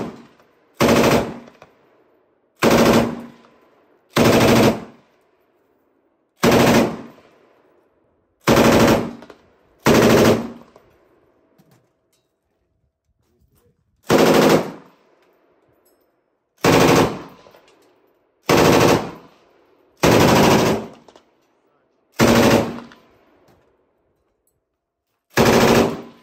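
PKM general-purpose machine gun in 7.62×54R firing a series of about a dozen short bursts, each roughly half a second long and trailing off in echo, with pauses of one to four seconds between them.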